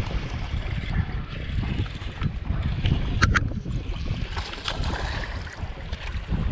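Wind buffeting the microphone in a low, uneven rumble, with two quick sharp clicks about three seconds in.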